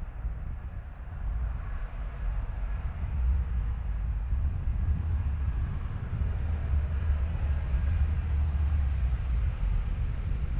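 Jet airliner engines rumbling low. The rumble grows louder over the first few seconds, then holds steady.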